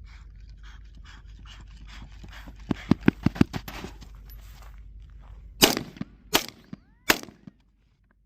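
AR-15 rifle fire during a timed drill. A quick string of about six shots comes about three seconds in. Three louder single shots follow, spaced under a second apart, the last ending the run.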